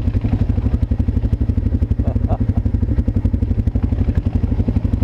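ATV engine running close by with a steady, low, rapid throb.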